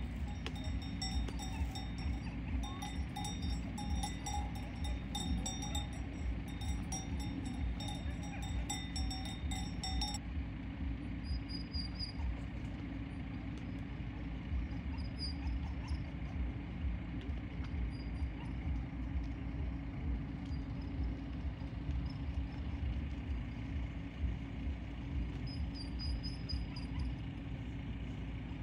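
Cowbells on grazing dairy cows clinking and ringing irregularly, stopping abruptly about ten seconds in. A low steady rumble runs underneath throughout, and a few faint high chirps are heard after the bells stop.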